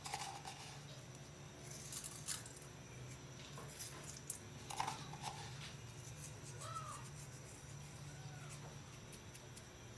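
Low steady hum with scattered faint clicks and light knocks of kitchen handling, and a couple of short faint squeaks near the end.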